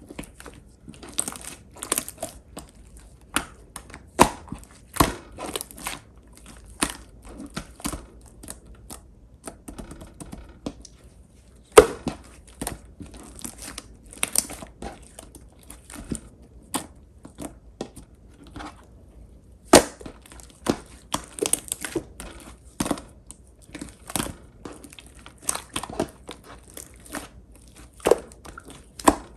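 Clear pink slime being squished and worked by hand, giving off irregular clicks and pops. A louder snap comes about twelve seconds in.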